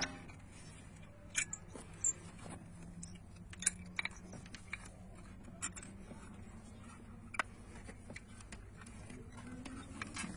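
Light metallic clicks and clinks, one every second or two, as a BMW E39 rear brake pad and caliper are handled and fitted by hand.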